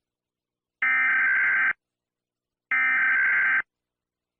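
Emergency Alert System SAME header: two bursts of warbling digital data tones, each just under a second long, about a second apart. These are the repeats of the coded header that comes before the alert's attention tone.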